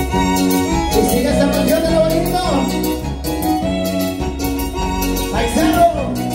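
Live Latin dance band music with a steady bass beat, and a melody of held notes that slide up and down in pitch.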